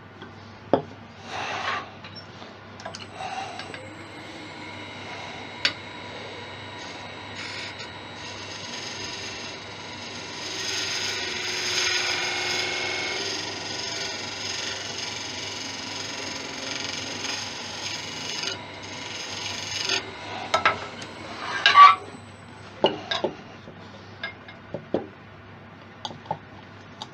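A turning tool shaves down a spinning monkey puzzle tenon on a wood lathe, giving a steady hiss of about twelve seconds in the middle. Before and after it comes wood rubbing and knocking on wood as the turned acacia body is pushed onto the tenon to test for a tight fit.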